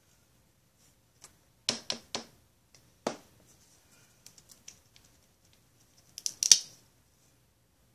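A few sharp plastic clicks and knocks from handling a paint bottle and its cap: three quick ones about two seconds in, another a second later, faint ticks, then the loudest quick cluster of clicks near the end.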